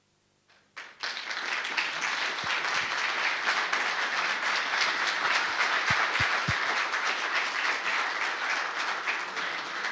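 Audience applauding: many hands clapping together, starting suddenly about a second in and keeping up steadily.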